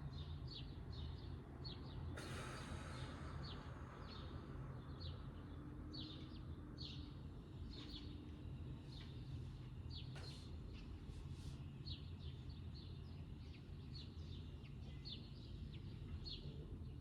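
Small birds chirping repeatedly in short calls over a low steady hum, with a brief rustle about two seconds in.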